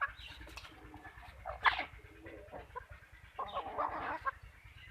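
Chickens clucking in short, scattered calls, with a sharper call about a second and a half in and a quick run of clucks near the end.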